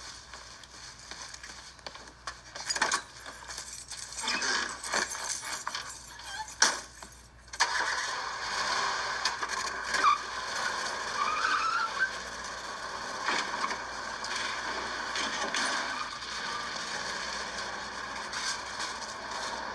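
A few knocks and clicks, the sharpest a little before the middle, then a car engine running steadily for the rest of the time.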